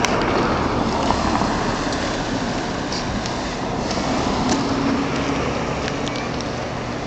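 Steady road traffic noise from cars, with a low engine hum and a few faint clicks.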